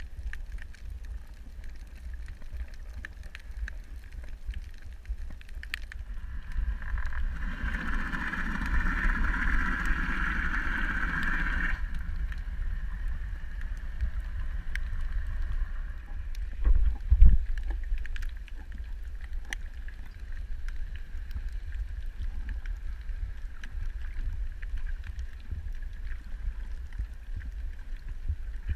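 Water noise on the microphone: a constant low rumble with scattered clicks and a steady higher hum. It grows louder and fuller for a few seconds about a quarter of the way in, and there is a single thump a little past the middle.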